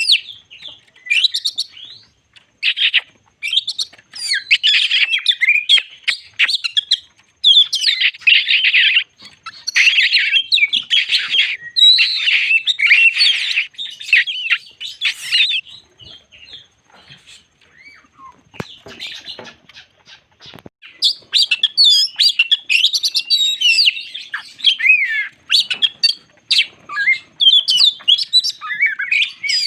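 Oriental magpie-robin (kacer) in full song: a loud, varied run of fast whistled and chattering phrases. It falls quiet for several seconds midway, leaving only scattered faint clicks, then resumes.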